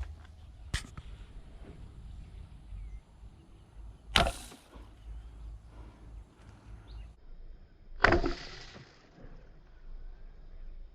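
Two fishing arrows shot at fish, each a short rushing whoosh about four seconds apart, with a sharp click about a second in.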